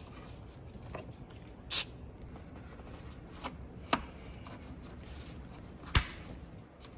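Upper radiator hose being worked onto the oil filter housing outlet by gloved hands, with rubbing and a few sharp plastic clicks. The loudest click comes about six seconds in. The clicks are the hose's retaining clip snapping over the fitting, the sign that the hose is seated far enough.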